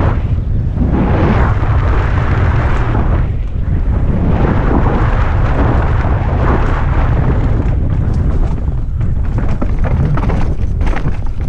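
Loud wind buffeting on a helmet-mounted camera's microphone during a fast downhill mountain bike descent, mixed with tyres on dirt. Near the end the bike clatters and rattles over rocks.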